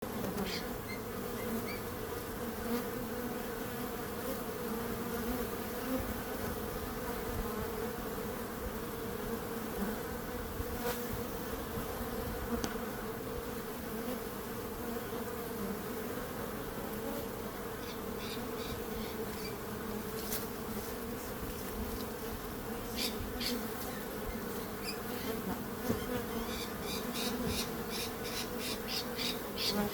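Many bees buzzing together in a steady, continuous drone. In the last few seconds, quick, sharp ticks come several a second over the buzz.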